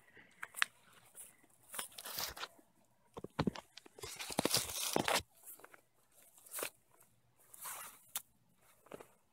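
Footsteps crunching and rustling through grass and weeds in irregular bursts, busiest and loudest about four to five seconds in.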